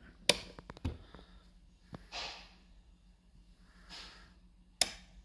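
Sharp clicks from handling the controls of a 1941 BD-72 field telephone switchboard: a loud click just after the start, a few lighter ones in the next second and a half, and another loud click near the end. Two soft breathy exhales come between them.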